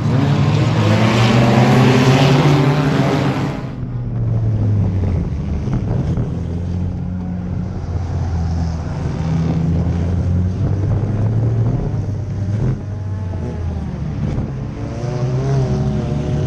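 Enduro race car engines running at speed on the track, heard from trackside, with pitch rising as they accelerate. Just under four seconds in the sound switches to an in-car recording: a race car's own engine under load, its note rising and falling with throttle through the corners.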